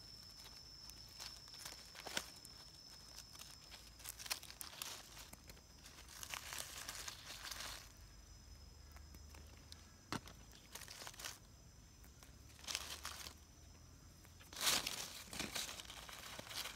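Dry leaf litter rustling and crackling in short, scattered bursts as fingers pick small mushrooms from the forest floor, the loudest rustle near the end.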